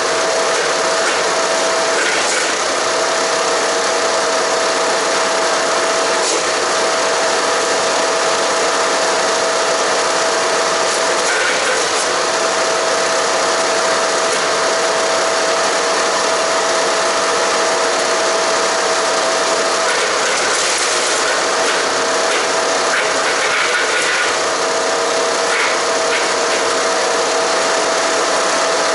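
Haige 15-horsepower wood chipper running steadily and chipping cedar and cypress branches: a loud continuous mechanical din over a steady whine, which breaks off briefly four times, about 2, 11, 20 and 24 seconds in.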